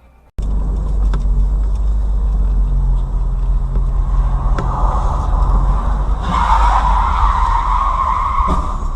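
A car driving, heard through a dashcam: a steady low engine and road rumble, with a hissing noise that grows louder from about six seconds in.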